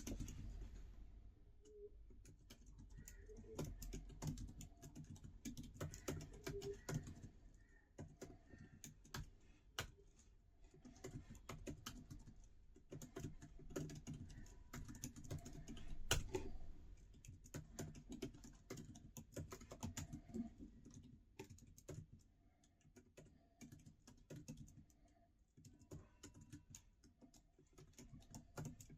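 Typing on a MacBook Pro 14-inch's built-in scissor-switch keyboard: a quick, irregular run of soft key clicks, with one louder keystroke a little past halfway and a few sparser seconds toward the end.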